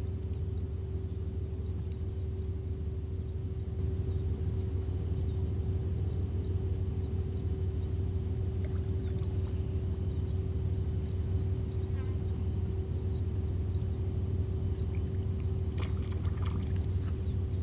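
Steady low rumble with a constant hum, like distant machinery or traffic, under short high chirps of small birds. A few short clicks come near the end.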